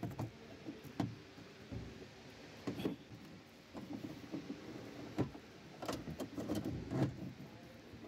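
Irregular clicks, knocks and rattles of a hand working inside a car door's cavity, among the metal and plastic parts of the door lock mechanism.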